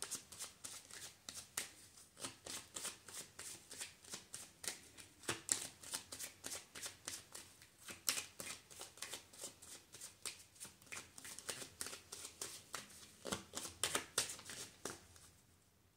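A deck of tarot cards being shuffled by hand: a fast, uneven run of light card flicks and riffles, several a second, that stops shortly before the end.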